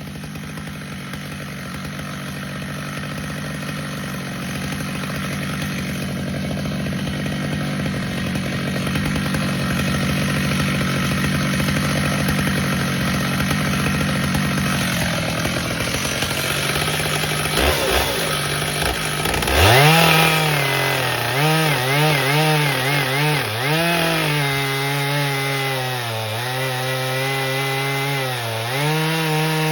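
Stihl MS 881 two-stroke chainsaw running steadily under load as it cuts through maple. About two-thirds of the way in its note turns clearer and louder and rises and falls repeatedly as the throttle is worked.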